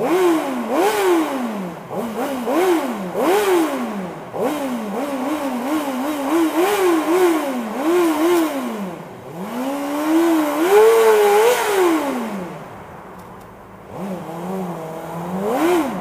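Motorcycle engine being revved hard in a series of rev bombs inside a road tunnel: about a dozen quick throttle blips, the revs shooting up and dropping back, then one longer rev held near the top before falling away, and one more blip near the end.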